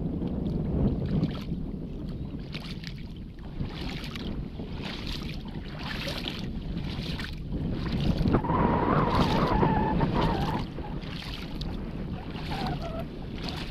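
A small boat moving across shallow water: a low motor rumble, water splashing at the hull in repeated short hisses, and wind on the microphone. A louder stretch with a wavering higher tone comes in the middle, and a short falling tone near the end.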